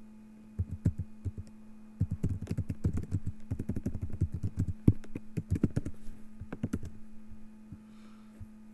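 Computer keyboard being typed on: quick runs of keystrokes with one louder key strike near the five-second mark, dying away about seven seconds in.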